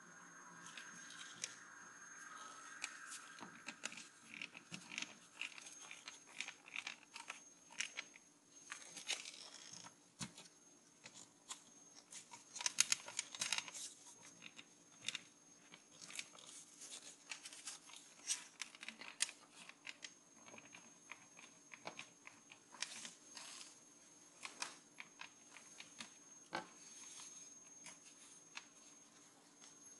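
Faint, irregular clicks, taps and rustles of an opened CD-ROM drive's plastic bezel and metal chassis being handled and turned over in the hands, busiest about halfway through.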